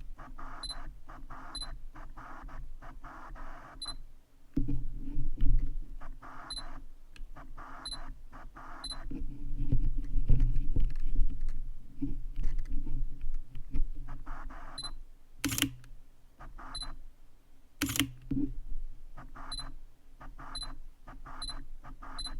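Sony FE 85mm f/1.4 G Master lens hunting through autofocus again and again, its focus motor making a weird noise in short repeated bursts, each with a short high focus beep. The owner can't tell whether the lens is broken or needs a firmware update. Duller rumbling stretches and two sharp clicks come between the bursts.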